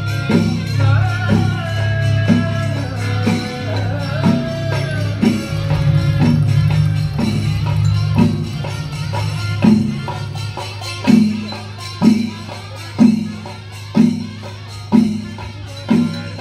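Kerala temple melam: chenda drums and cymbals beating a slow, even stroke about once a second. A wavering wind-instrument melody rises over the drumming for the first few seconds, over a steady low hum.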